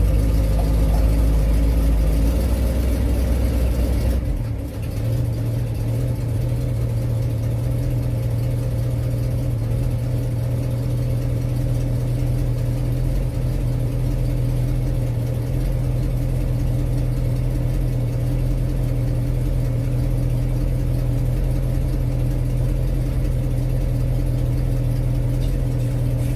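Old Mopar engine idling steadily under its doghouse engine cover, which makes it sound much quieter; the owner judges the engine itself sound. About four seconds in, the deep low rumble drops away and a steadier hum takes over.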